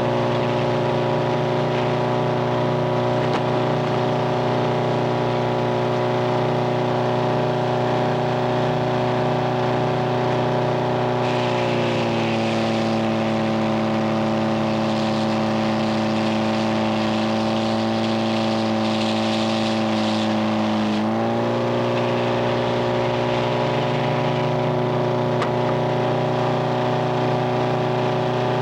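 Engine driving a Frick 00 circular sawmill, running steadily. Partway through, its pitch sags and a higher hiss joins in, as when it takes load with the saw in a cut; about nine seconds later the pitch picks back up and the hiss fades.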